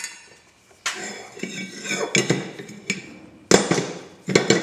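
Metal clanking and scraping as a three-jaw lathe chuck and its backing plate are handled and set against each other on a steel bench. Sharp knocks come about a second in and again in the last second, with metallic ringing and clatter between.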